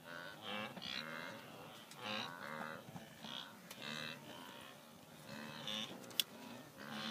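A wildebeest herd calling: many short, overlapping lowing grunts, one after another every half second to a second. A single sharp click about six seconds in.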